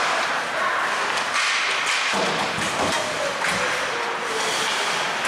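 Ice hockey rink din: a steady hiss with scattered knocks and thuds, heaviest a couple of seconds in.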